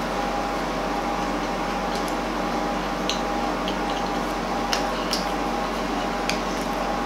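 A steady hum with a faint whine runs throughout, and a few soft, short clicks and wet mouth sounds come from a person chewing pancake.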